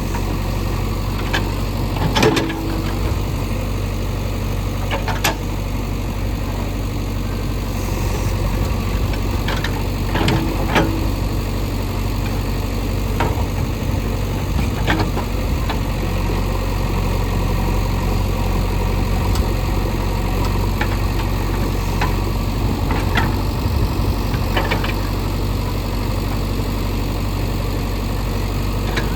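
JCB 3DX backhoe loader's diesel engine running steadily at a low, even pitch, with a scattered knock or clunk every few seconds.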